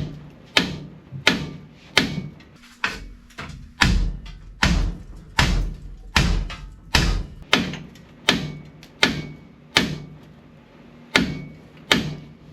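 A hammer striking steel in a steady rhythm, about a blow and a half per second, each blow ringing briefly, as front-end suspension parts are knocked loose.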